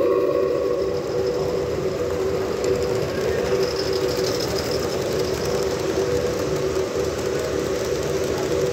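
A steady howl from the gas-fired 1.5-inch scale Allchin traction engine model, which its owners think means the gas blower needs adjusting. About a second in the sound drops back, and a live-steam model of a German class 52 steam locomotive runs past on the track with its train, a steady mechanical running with the howl still faintly under it.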